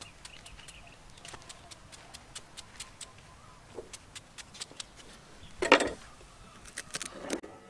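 Light, sharp clicks, about three or four a second, as a knife cuts and trims a pale green plant stalk. A louder thump comes a little before the end.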